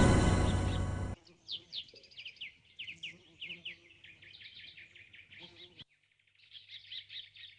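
A loud ringing hit dies away over the first second. Then birds chirp in quick, falling trills, with a brief pause about six seconds in.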